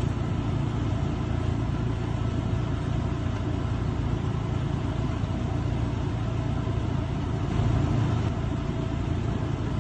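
A vehicle engine idling steadily, a low rumble that swells slightly about eight seconds in.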